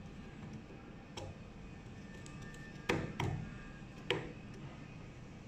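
Four sharp clicks of a coupling sleeve being worked onto the toothed hub of a gear pump's shaft coupling. The loudest come about three and four seconds in.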